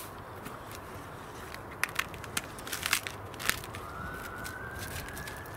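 Husks being peeled and torn off miniature sweet corn cobs by hand, a run of dry crackling snaps starting a couple of seconds in. A faint tone slowly rising in pitch comes in about four seconds in.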